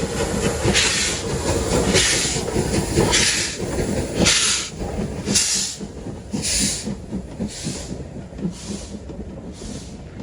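Steam locomotive working a train, its exhaust chuffing about once a second. The chuffs grow fainter from about halfway through, with a faint clickety-clack of wheels on the rails underneath.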